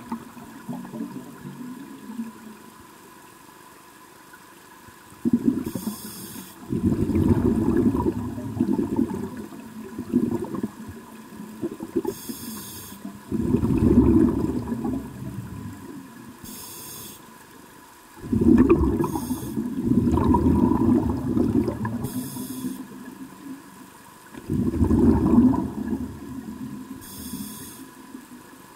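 Scuba diver's breathing through a regulator underwater: a brief hiss with each inhalation, then a long rumble of exhaled bubbles, repeating every four to six seconds.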